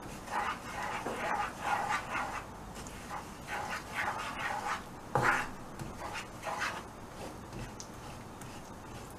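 Wooden spoon stirring and scraping thick melting jaggery syrup around a non-stick pan, giving irregular swishing, sticky strokes. The strokes come in bunches, with the loudest just after five seconds, and die away about seven seconds in.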